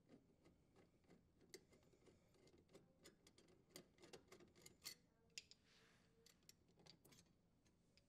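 Near silence with faint, scattered clicks of a screwdriver backing a screw out of a dishwasher's sheet-metal junction box cover.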